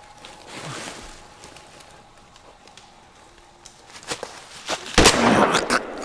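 Faint rustling footsteps, then two sharp clicks and, about five seconds in, a sudden loud burst of noise lasting about a second.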